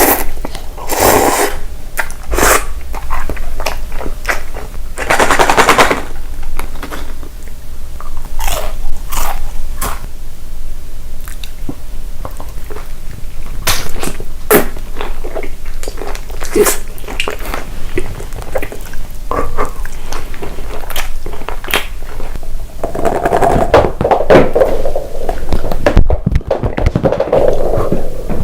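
Close-miked eating: crunchy bites and chewing, many sharp crunches and crackles coming irregularly, with a denser stretch of chewing near the end.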